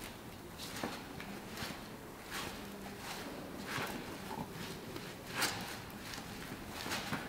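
Soft scuffs and brushes of a dancer moving on a stone floor and against a stone wall, coming irregularly about once a second over a faint steady hiss.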